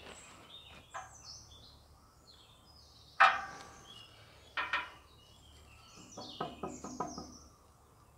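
Sharp knocks and taps on the trailer's metal frame as it is handled from underneath: the loudest knock comes about three seconds in, a double knock follows, and there is a quick run of taps near the end. Small birds chirp throughout.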